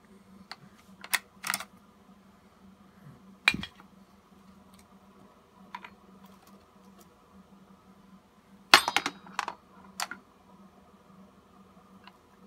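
A baby knocking and clinking toys, including the keys of a wooden toy xylophone: scattered sharp clacks and clinks at irregular intervals, the loudest cluster about nine seconds in, over a faint steady low hum.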